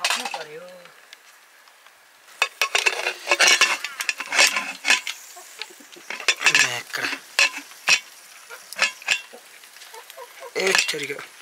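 Irregular clicks, knocks and clatter of a metal pressure cooker's lid and handle being handled on the fire, starting about two seconds in.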